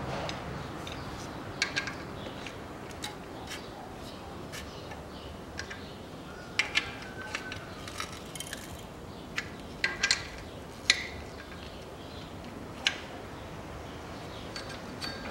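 Wrench and other hand tools clinking and tapping against a Toyota 3S-FE engine's timing-belt tensioner and pulleys while the timing belt is taken off. The sharp metallic clicks come at irregular intervals, the loudest about eleven seconds in.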